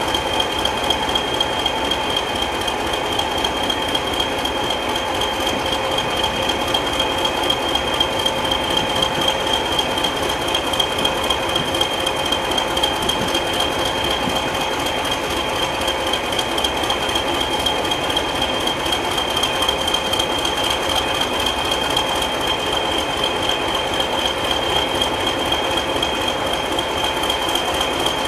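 Heritage British Rail diesel train engine running steadily, an even rapid pulsing with a constant high whine over it and no change in speed or pitch.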